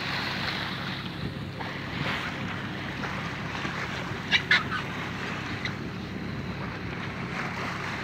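Steady drone of a boat's engine under wind buffeting the microphone and the wash of the sea. Two short high-pitched calls sound close together about four seconds in.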